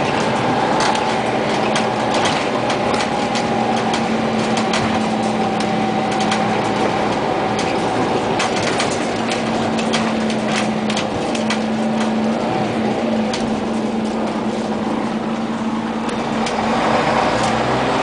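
Inside the cabin of a moving Scania CN94UA OmniCity articulated city bus: the drivetrain runs with a steady hum and a higher whine that ease off in the second half, under a constant road noise with frequent rattles and clicks from the body and fittings.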